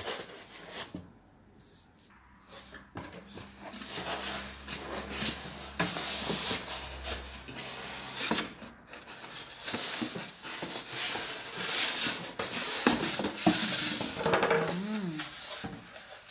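Cardboard packaging rustling and scraping as a halogen oven is unpacked, with light clinks and knocks from its metal rack and glass bowl being handled.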